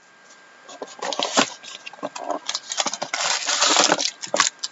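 Crinkling and rustling of packaging as a box of trading cards and its foil packs are handled and opened: a run of irregular crackles that is thickest about three seconds in.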